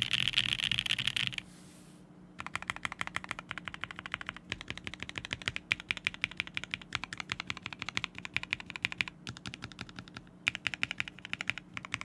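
Fast typing on a Zenith mechanical keyboard with black cherry pie switches, spring-swapped to 60 g slow springs, on an FR4 half plate: a dense run of key clacks. It stops for about a second near the start and pauses briefly twice near the end.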